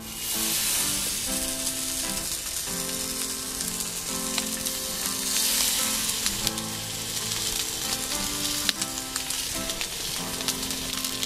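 Lamb chops sizzling and spitting in a hot black steel frying pan on a gas camping stove, the sizzle starting sharply as the chops go into the pan. Background music plays underneath.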